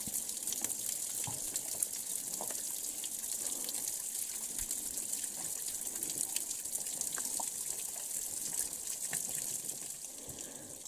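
Spring water trickling and dripping down a rock face into a shallow pool: a steady splashing hiss with many small drip ticks, easing off slightly near the end.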